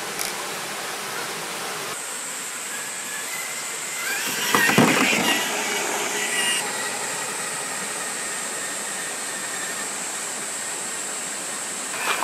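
Electric motor and geartrain of an Axial SCX6 1/6-scale RC crawler whining steadily as it drives along a dirt trail, the whine stepping up in pitch about six seconds in. A louder burst of noise about four seconds in, lasting a second or so.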